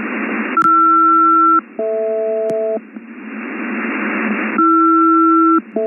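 SELCAL tone call over HF single-sideband radio: a pair of one-second two-tone pulses, sent twice, with shortwave static hiss before and between them. The tones alert one aircraft's crew that ground control is calling.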